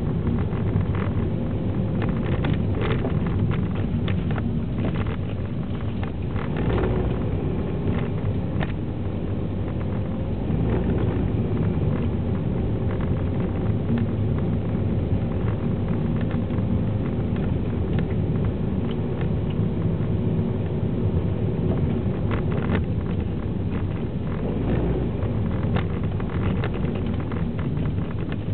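Inside the cabin of a 2009 Vauxhall Astra 1.8 petrol automatic on the move: steady engine and tyre rumble, with scattered clicks and knocks.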